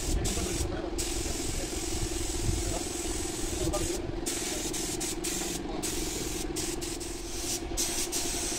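Compressed-air spray gun hissing steadily as primer is sprayed onto steel truck body panels, the hiss dropping out briefly several times, over a steady low hum.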